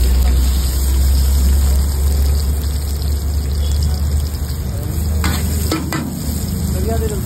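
Sliced onions sizzling and frying in hot oil in a wide iron pan on high heat, over a steady low rumble. A steel ladle stirs them and knocks against the pan a few times about five to six seconds in.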